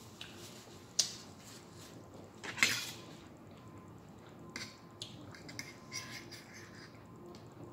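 Fork clicking and scraping against a plate while eating, with a sharp click about a second in, a louder scrape around the middle, and a string of light clicks in the second half.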